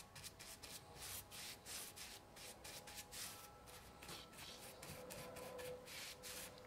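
Bristle brush stroking shellac onto rough, weathered wood: a faint, repeated swish, about three strokes a second.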